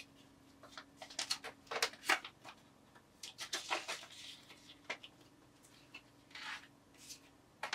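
Plastic banknotes and a clear plastic envelope being handled: scattered crinkles, rustles and light taps as a folded $20 note is slipped into the envelope. A faint steady hum runs underneath.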